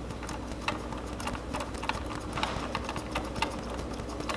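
A 10 mm socket ratchet clicking as a screw is driven down, a run of sharp ticks about two a second.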